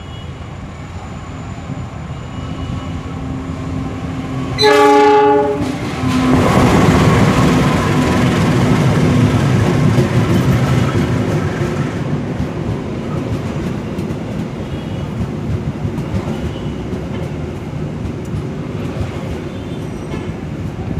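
A train runs past as its noise builds. About five seconds in its horn gives one short blast of under a second. The train then passes with a loud rumble and rail clatter that slowly fades.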